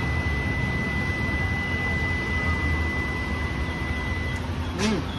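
Steady low rumble of street traffic with a thin, steady high-pitched tone over it that stops about four seconds in. Near the end comes a brief voiced sound that rises and falls in pitch.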